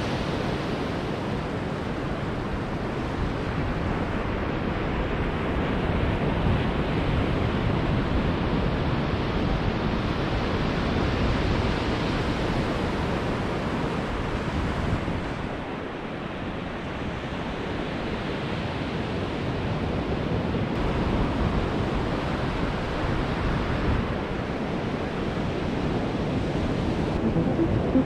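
Ocean surf breaking on a sandy beach: a steady wash of waves that swells and eases, with wind buffeting the microphone.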